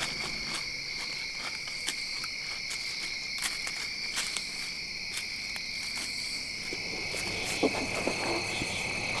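Night chorus of crickets and other insects: a steady, high chirring in two pitch bands. Scattered light clicks run through it, with a few slightly louder rustles and knocks near the end.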